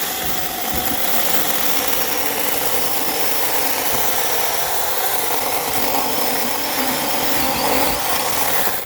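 Handheld 6-inch battery-powered mini chainsaw running steadily as it cuts into the woody base of a dead bush, then cutting off abruptly near the end.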